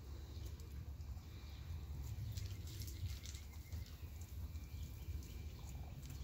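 Faint, short, high-pitched animal chirps, clustered about two to three seconds in, over a steady low rumble.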